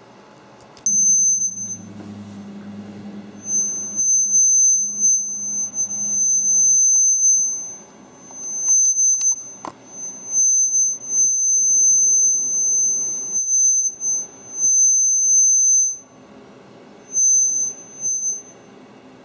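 A high-pitched squeal from inside an opened Lenovo ThinkPad R61 laptop, switching on and off in stretches of one to four seconds; it is the unexplained fault noise the laptop was brought in for. A low hum runs under it for the first several seconds.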